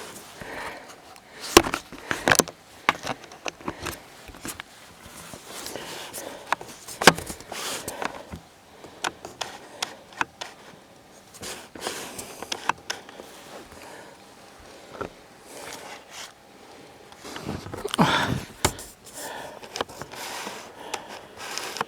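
Footsteps crunching through snow, with clothing rustling and the camera being handled, as irregular scrapes and crunches. A louder burst of noise comes near the end.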